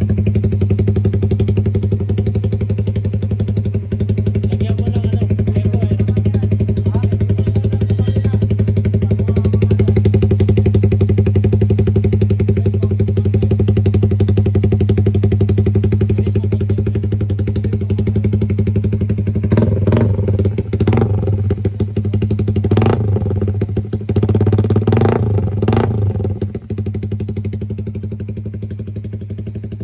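Suzuki Raider 150 Fi single-cylinder engine idling steadily through an open aftermarket exhaust, with a run of about five short, sharp throttle blips starting about twenty seconds in, then dropping back to a quieter idle.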